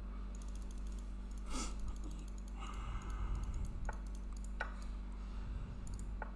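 Scattered clicks of a computer mouse and keyboard, a quick run of them followed by a few single sharper clicks, over a steady low electrical hum.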